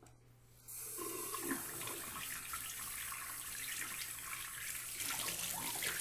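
Water running from a tap, starting just under a second in and then running steadily.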